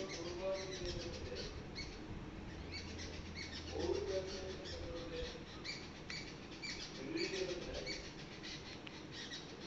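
Birds calling in the trees: a low cooing call, about a second long, comes back roughly every three and a half seconds, over frequent short, high chirps from small birds.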